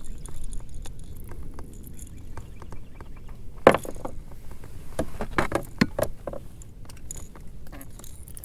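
Irregular knocks, clicks and light rattles as a small blue catfish is brought aboard a kayak and handled. The loudest knock comes a little under four seconds in, with several more a second or two later.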